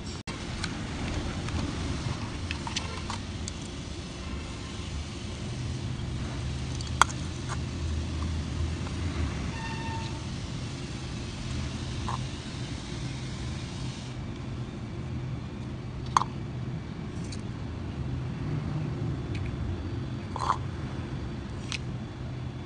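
A steady low rumble, like a motor or traffic, runs throughout, with a few sharp clicks scattered through it; the loudest click comes about seven seconds in.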